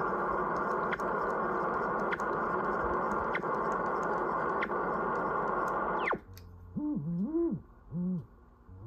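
Collins 75A-4 receiver's speaker hissing with band noise, which cuts off about six seconds in with a quick falling whistle. A beat-note whistle follows, swooping up and down in pitch as the tuning knob is turned across the crystal calibrator signal to check the dial's calibration.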